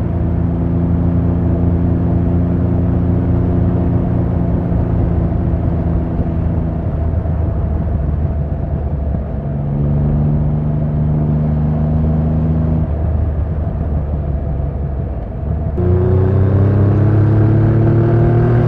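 2024 Triumph Rocket 3 GT's 2.5-litre inline-three engine and exhaust, heard from the rider's seat while cruising at a steady note. The note dips briefly about ten seconds in and settles a little lower. Near the end it dips again, then gets louder and rises in pitch as the throttle opens.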